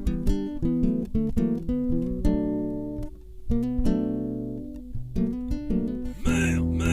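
Acoustic guitar music: plucked notes and strummed chords, each fading after it is struck. Near the end a fuller, steady sound with a pulsing rhythm comes in.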